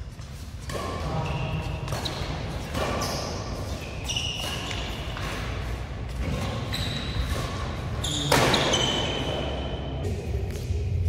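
Badminton doubles rally: rackets strike the shuttlecock several times, the hardest hit about eight seconds in, and sports shoes squeak on the synthetic court between shots.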